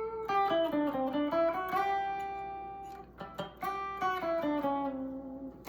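Electric guitar on its bridge pickup playing a single-note melodic lead line: picked notes stepping up and down, with one note held and let ring for about a second.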